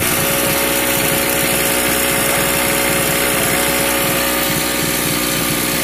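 Storm Cat portable generator's 2 hp two-stroke engine running at a steady speed.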